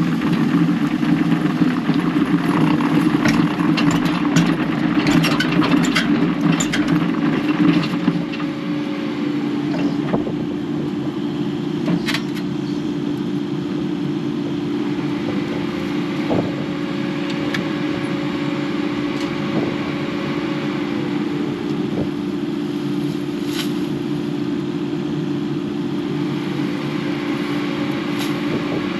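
A diesel engine of heavy digging equipment running steadily under load. During the first eight seconds it is louder, with many sharp cracks and clatters as brush and rock are worked. After that it settles to an even drone with only an occasional click.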